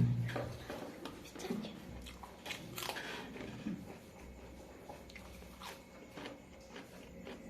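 Person chewing and biting into chicken pieces close to the microphone, with scattered crunchy bites, the loudest about three seconds in.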